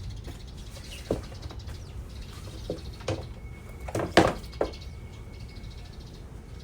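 Handling noise as a short bow and its case are taken out of the packaging: a few scattered knocks and rubs, the loudest a little after four seconds in. A faint steady high whine sits under it from about halfway through.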